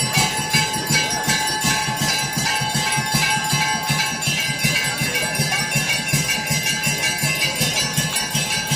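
Temple bells ringing continuously over a fast, even beat of percussion, the sustained clang of several bells layered with regular strokes, as at a Hindu evening prayer at a Shiva temple.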